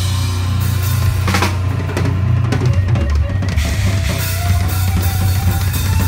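PDP double-bass-drum kit played live: fast, continuous kick-drum strokes under snare hits and cymbal crashes.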